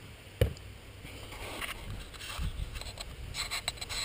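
A single sharp knock about half a second in, then faint scraping and a run of light clicks near the end, like gear or equipment being handled.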